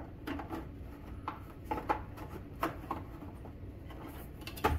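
Scattered plastic clicks and rubbing as the bottom cover of an Afloia air purifier is twisted by hand to take it off, with a louder knock near the end.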